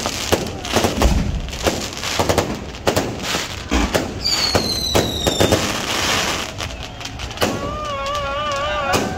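Fireworks going off in quick succession: many sharp bangs and crackles one after another, with a falling whistle a little under halfway through. Near the end the bangs thin out and a warbling high tone comes in.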